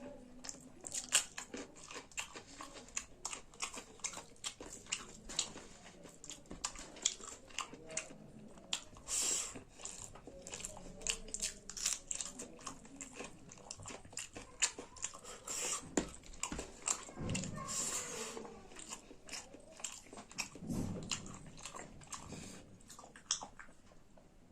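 Chewing and wet mouth clicks of someone eating rice with saag (cooked leafy greens), a fast, irregular run of smacking sounds.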